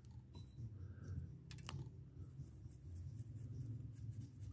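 Faint scratching and light clicks of a small brush rubbing black pastel chalk onto a plastic model locomotive shell, over a low steady hum; one slightly sharper click about a second and a half in.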